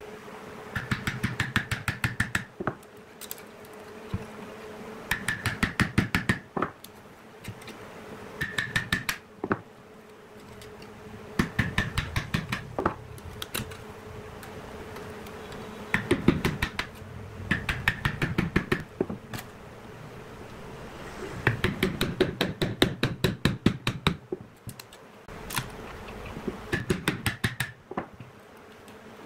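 Quick runs of light taps from a wooden mallet striking a chisel against a cured epoxy-and-coloured-pencil block to break away its foil mould. Each run has about eight taps a second and lasts a second or two, with short pauses between.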